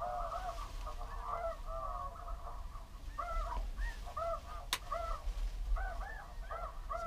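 A flock of snow geese calling overhead: many short, overlapping honks, one after another, with a single sharp click a little past the middle.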